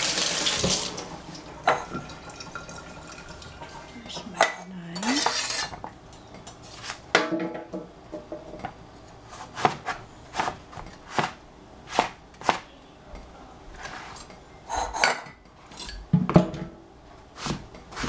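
Kitchen tap running, shut off about a second in, then a cleaver chopping eggplant on a cutting board: sharp knocks of the blade on the board, about one a second, through the second half.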